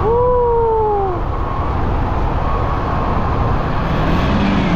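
Motorcycle on the road: steady rush of wind and engine noise. Right at the start, a short pitched tone rises briefly and then slides down in pitch over about a second.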